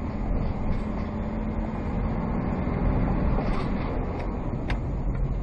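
Steady low rumble of a vehicle moving along a road in traffic, heard from an onboard dash camera, with a faint steady hum that fades out about three seconds in and a couple of faint clicks near the end.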